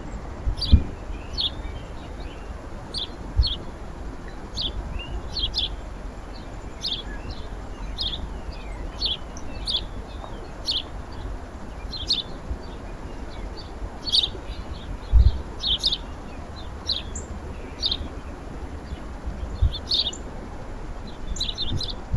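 Small birds at a feeder chirping: short, high, sharp chirps, about one to two a second, on and off throughout. A few dull low thumps stand out, about a second in, near three and a half seconds, and twice later on.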